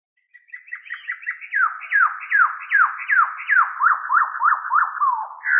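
A series of clear whistled notes, each sliding down in pitch. They come quickly at first, then slower and longer, and a few notes past the middle rise and then fall.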